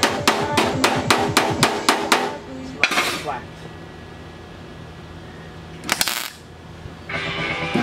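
Hammer striking a sheet-metal repair panel in a quick, even rhythm of ringing blows, about five a second, stopping a little after two seconds in. Near six seconds a wire-feed (MIG) welder tacks the panel with a short crackle, and the crackling arc starts again about a second later.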